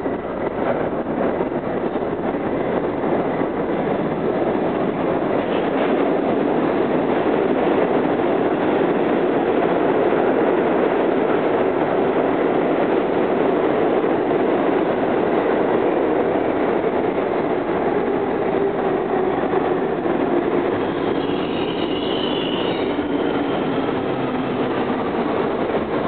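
R32 subway train running along a station platform: a steady, loud rumble of steel wheels on rail, with a whine that falls in pitch over the last few seconds and a brief high wheel squeal about three-quarters of the way through.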